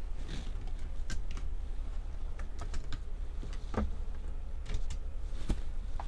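Scattered clicks and light knocks from lift-up overhead RV cabinet doors being handled and pushed shut on their hinges, over a steady low hum.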